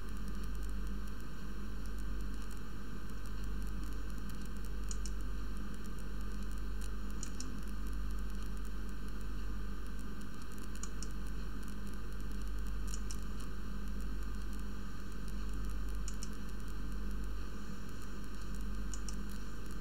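Steady hiss of a home recording's background noise with a low hum underneath, and a few faint, short clicks every couple of seconds from a computer mouse.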